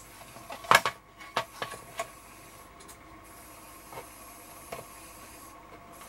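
A hand tool clicking, tapping and rubbing on a hard plastic model-kit part: a sharp pair of clicks about three-quarters of a second in, the loudest, then a few lighter taps scattered through the rest.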